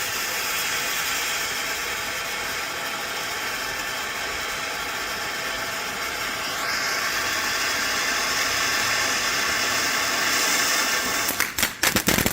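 Ground firework spraying with a steady hiss, then a rapid burst of crackling pops near the end.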